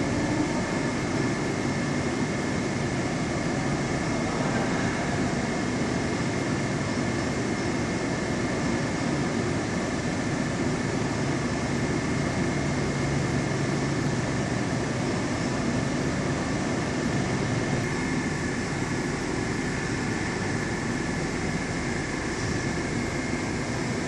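Steady mechanical hum and rushing noise of an aquarium hall's machinery, with a faint high steady whine.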